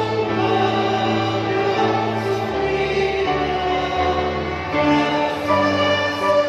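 Violins and a grand piano playing a slow hymn together, in sustained chords with the bass note changing every second or two.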